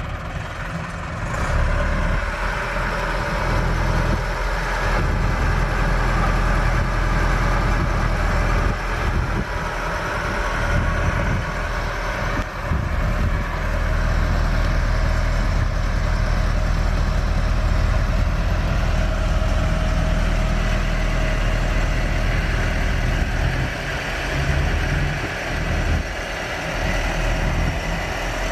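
Massey Ferguson 390 tractor's 4.1-litre diesel engine running steadily, with a deep, low-pitched engine note and only small dips in level now and then.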